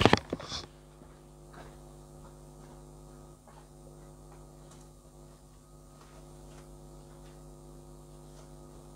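Brief handling clatter, then a steady low electrical hum with faint occasional ticks.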